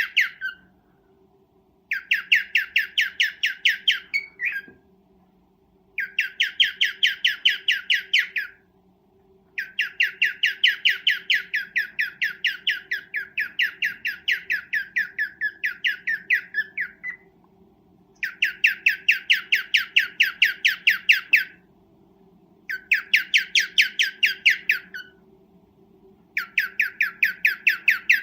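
Cockatiel giving its mating call: rapid strings of sharp chirps, about six a second, in repeated bouts of a few seconds each with short pauses between, over a faint steady hum.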